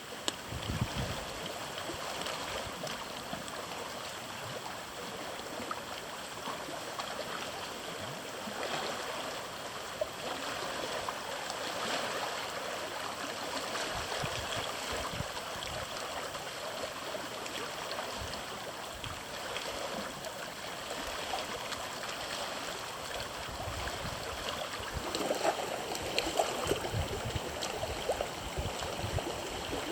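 Small lake waves lapping and sloshing against the shore, with a few louder splashes near the end.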